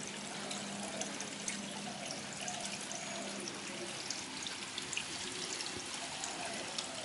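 Water trickling and splashing steadily into a pond, with many small, quick splashes.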